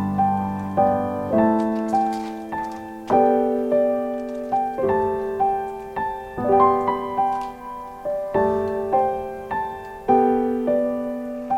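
Background music: a gentle piano melody with chords, each note struck and left to fade.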